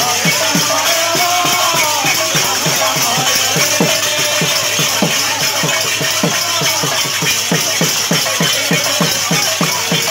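Folk drums beating a fast, steady rhythm of about five strokes a second, with constant metallic jingling and a wavering melody line above.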